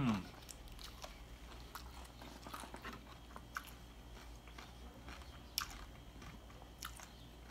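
A person chewing a mouthful of crisp fried-tortilla tostada close to the microphone, with scattered sharp crunches. A brief hummed 'mmm' ends just as it starts.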